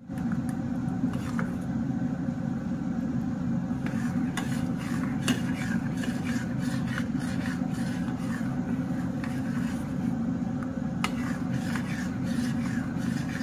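Metal spoon stirring chocolate frosting in a stainless steel saucepan, scraping and clicking against the pan at irregular moments. A loud steady low hum runs underneath throughout.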